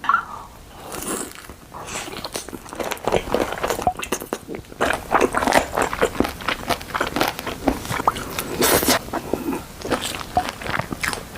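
Close-miked eating sounds: irregular crunchy bites and chewing, with many small crackles.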